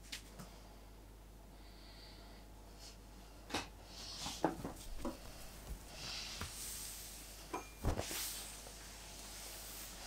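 Quiet handling noises: a few scattered light knocks and clicks, with a soft rustle about two thirds of the way through.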